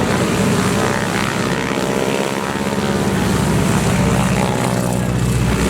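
North American T-6 Texans' radial engines and propellers droning loudly as the formation flies past, the pitch of the drone sliding as they go by.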